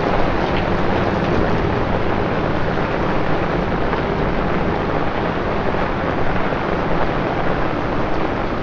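Torrential rain falling on a city street: a steady hiss with no let-up.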